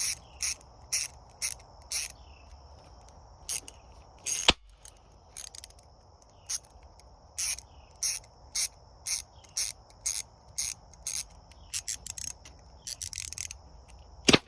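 Hand ratchet wrench being worked back and forth, its pawl clicking in short bursts about twice a second, with one louder sharp click about four and a half seconds in.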